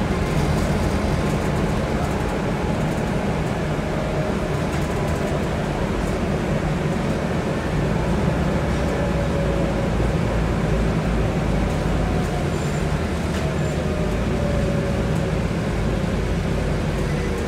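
Scania N250UD double-decker bus, its five-cylinder diesel and drivetrain running steadily, heard from inside the upper deck. A faint whine slides down in pitch near the end.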